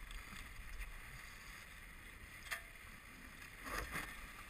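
Farr 30 racing yacht sailing downwind through a jibe: a steady rush of wind and water, with a sharp knock about two and a half seconds in and a louder burst of noise near the end as the sails come across.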